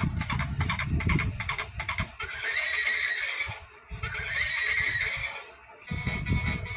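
Horse sounds: quick hoof clip-clops, then two long whinnies, the first about two seconds in and the second about four seconds in.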